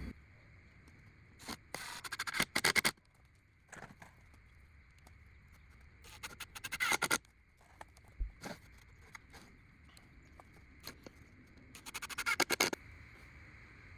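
Ryobi cordless impact driver driving screws into cedar boards in three short bursts. Each burst is a rapid hammering rattle that builds up over about a second as the screw seats.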